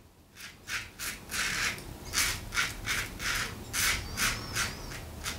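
Stainless steel double-edge safety razor (Alpha Shaving Works Outlaw Evolution) scraping through lathered stubble on the chin and jaw, in short repeated strokes of about two a second.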